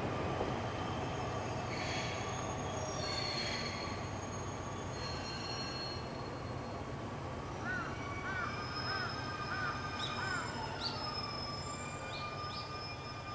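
Distant train's wheels squealing on curved track: steady high-pitched squeal tones over a low rumble, slowly fading away.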